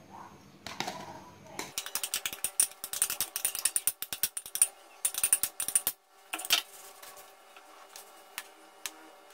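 Metal spoon scraping thick, half-frozen ice cream mixture out of a ceramic bowl into a plastic tub: a quick run of rapid scraping clicks lasting about four seconds, then a sharp knock and a few lighter taps as the mixture is spread in the tub.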